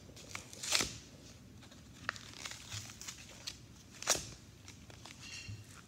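Plastic packaging of a jelly cup being handled and opened: scattered small crinkles and clicks, with two louder crackles, one near the start and one about four seconds in.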